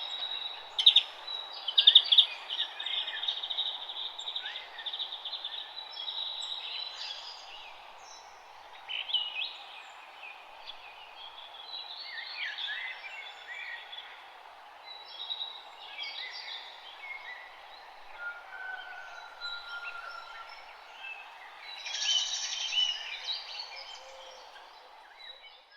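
Several songbirds chirping and singing over a steady background hiss, with a fast trill in the first few seconds and a busier burst of calls near the end, then fading out.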